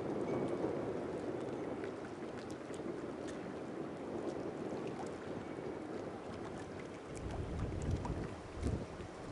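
Steady rush of wind and sea water. From about seven seconds in, wind buffets the microphone in low gusts.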